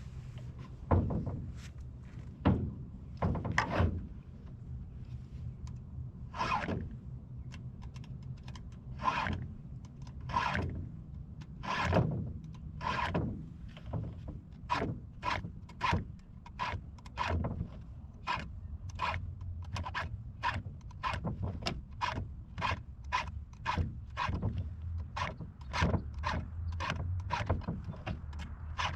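Round chainsaw file rasping across the chain's cutters in short, even strokes, a few at a time per tooth, settling into about one stroke a second. A faint low hum runs underneath.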